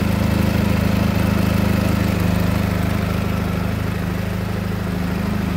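2002 Polaris Sportsman 700's twin-cylinder four-stroke engine idling steadily, warmed up after about ten minutes of running.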